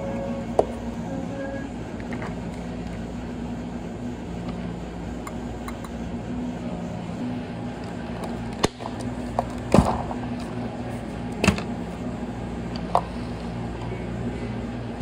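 Cafe room tone: a steady machine hum with several sharp knocks and clinks, the loudest a little past the middle.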